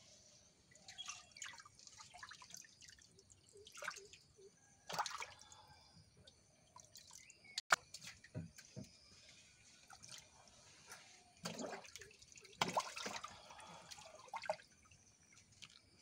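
Small, irregular splashes and drips of water as a floating mesh fish cage is handled from the side of a boat, with one sharp knock about halfway through.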